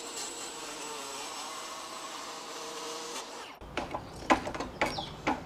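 A faint, steady buzz for the first three and a half seconds, then a run of sharp clicks and knocks as the table saw's rip fence and a steel rule are handled and set.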